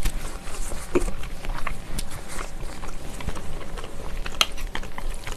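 Close-miked chewing of a mouthful of braised ox knee, with small wet mouth clicks. A few sharp clicks of chopsticks against a metal bowl come near the end.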